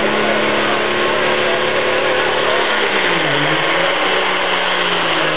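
John Deere diesel tractor's engine running flat out under heavy load while pulling a weight sled. Its pitch dips about three seconds in, then climbs partly back.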